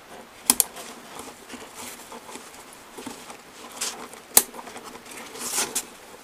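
Shoulder strap's snap hook clicking on the rings of a Cordura pouch: a quick double click about half a second in and a single sharp click a little past the middle, with nylon fabric rustling as the strap and pouch are handled.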